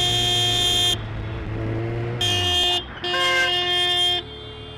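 Vehicle horn honking three times: a blast of about a second, a short toot, then a longer blast, with an engine running low beneath the first part.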